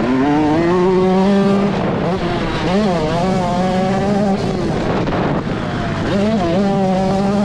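Yamaha YZ125 single-cylinder two-stroke dirt bike engine revving hard under acceleration. Its pitch climbs in the first second and holds high, dips and flicks back up about three seconds in, drops off about five seconds in, then rises again near the end as the throttle is opened and closed.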